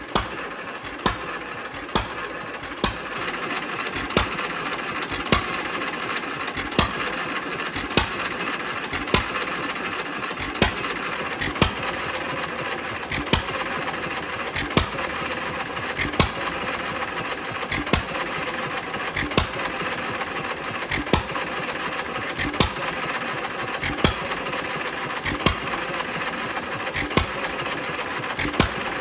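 1923 Fairbanks Morse 1½ hp hit-and-miss engine running with no load: a sharp firing bang about once a second, spreading out to about once every second and a half, with steady mechanical clatter as it coasts between fires. The engine fires only when its speed drops, skipping strokes in between.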